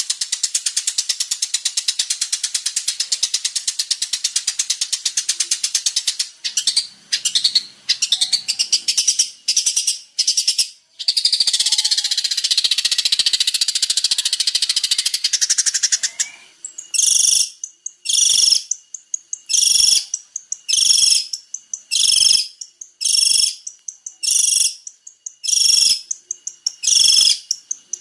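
Long-tailed shrike (cendet) singing: a fast, dense, harsh chatter, then broken scattered notes and a second chatter. About halfway through it settles into a series of short, clear repeated calls, roughly one a second.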